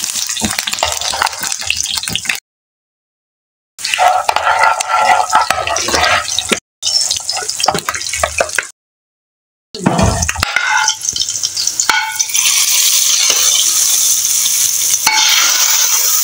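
Tadka of cumin seeds, bay leaves, dried red chillies and chopped green chillies sizzling and crackling in hot oil, stirred with a metal spoon that clinks against the pan. The sound drops out completely twice for about a second each, and a steadier sizzle holds over the last few seconds.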